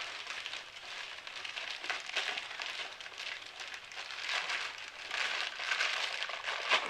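Packaging being handled and opened, a steady crinkling and rustling with many small clicks.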